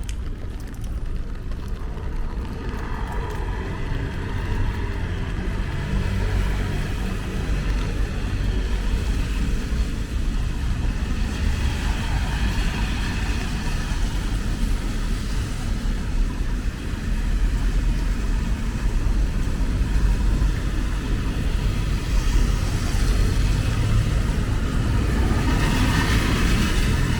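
City street traffic: a steady rumble of passing cars that grows louder toward the end.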